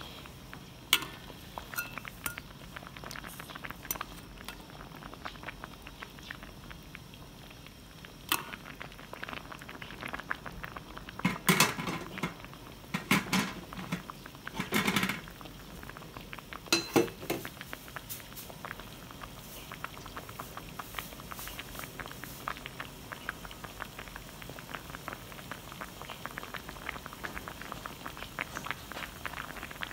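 Coconut milk simmering in a pot with tulingan fish, a steady fine bubbling and popping, with a few louder knocks and pops about halfway through.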